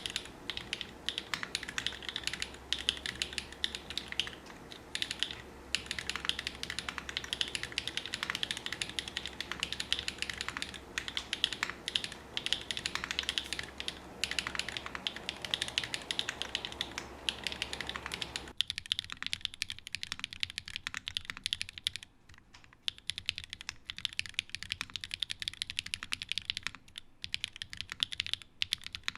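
Continuous fast typing on a custom 60% mechanical keyboard with SW x Gateron Deepping 4.0 linear switches (nylon housings, POM stems), an FR4 plate, O-ring mount, no foam and GMK keycaps, giving a rapid stream of bottoming-out key clacks. For roughly the first two-thirds it is picked up through a camera microphone with a low background hum. The hum then drops away and the keystrokes sound cleaner.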